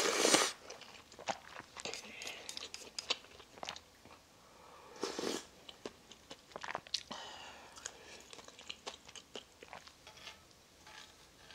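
Close-miked eating of spicy jjamppong ramyeon: a loud slurp of noodles at the start and a slurp of broth about five seconds in, with chewing clicks in between.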